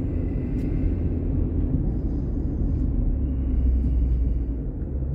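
A car driving at a steady pace on a paved road: engine and tyre noise making a steady low rumble.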